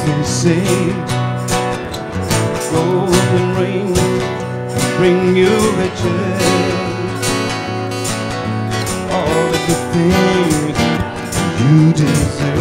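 Two guitars played together live, one a steel-string acoustic, strumming chords in a steady rhythm with picked melody lines over them.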